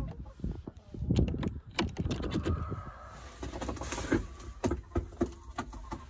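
Irregular clicks and knocks over a low rumble.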